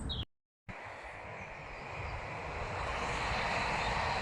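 A train running over a railway bridge: a steady rumbling noise that builds over the first couple of seconds and then holds, after a brief dropout at the very start.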